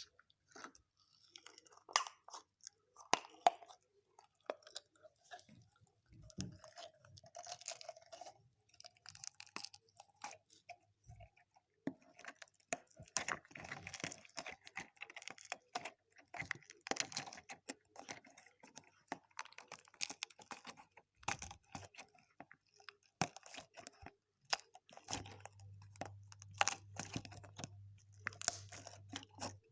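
Homemade slime being squished and pressed by hand, making a dense run of irregular sticky clicks, pops and crackles. A faint low hum comes in near the end.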